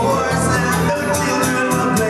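A live acoustic guitar is strummed in an even rhythm under a singer's voice, both played through small amplified speakers.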